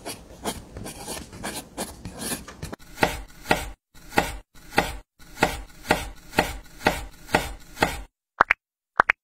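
A steady run of sharp knocks, about two a second, after a stretch of softer scraping and rustling.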